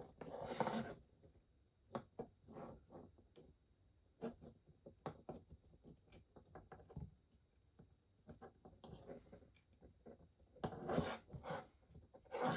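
Scattered light clicks and taps of small tools and parts being handled on a workbench, with a louder rustle about half a second in and again about 11 seconds in.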